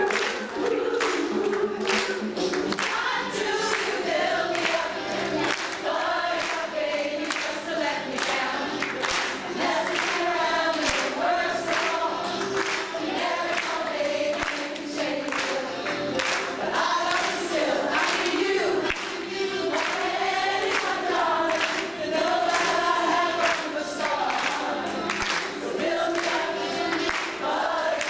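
A group of women singing together, with steady hand clapping along in time, about two claps a second.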